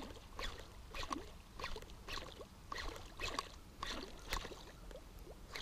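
A walk-the-dog topwater musky lure twitched across calm water, popping faintly in a steady rhythm of about two pops a second.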